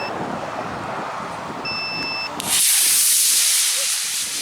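A model rocket launch controller's electronic continuity beep sounds twice, the second beep longer. Right after it, a sudden loud hiss starts and lasts about two seconds before cutting off abruptly: the model rocket motor firing at launch.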